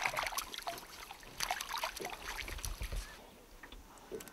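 Small brown trout thrashing in a landing net at the boat's side, splashing the water in two bouts in the first couple of seconds, then quieter.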